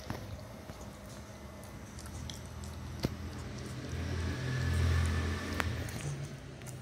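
Beagle puppy chewing on a chew stick, with a few sharp clicks. A low rumble swells to the loudest point around the middle.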